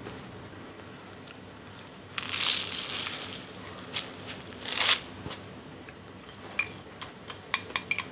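White powder poured from a glass jar into a glass bowl of banslochan (bamboo silica) chunks: a rushing pour about two seconds in and a shorter one near five seconds. Near the end come a run of sharp clinks against the glass bowl.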